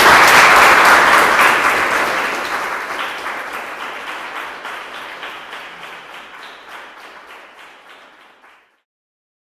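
Audience applauding, loudest at the start and dying away gradually into fewer, separate claps, then cut off abruptly near the end.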